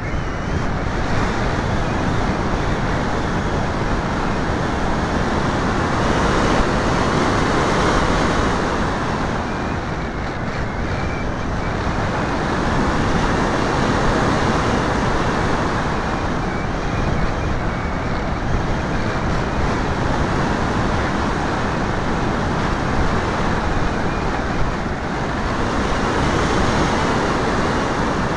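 Steady rush of airflow over the microphone of a camera in flight, swelling and easing several times.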